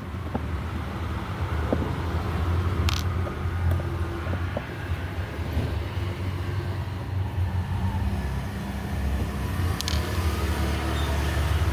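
A steady low engine-like rumble, with a few small clicks and taps from the hair clipper's plastic housing and screwdriver being handled.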